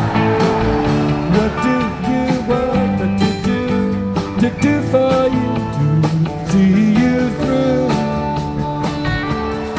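Live rock band playing an instrumental passage of a song: electric guitar lines with bending notes over bass and a steady drum beat.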